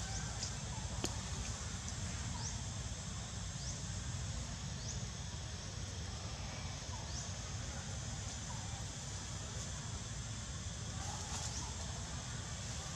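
Forest ambience: a steady hiss and low rumble, with short, high rising chirps repeating about every second and a single click about a second in.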